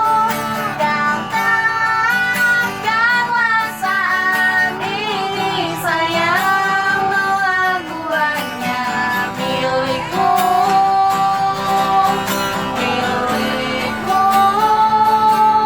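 A busker singing a song in a high voice to a strummed guitar, the sung notes held and wavering over steady strumming.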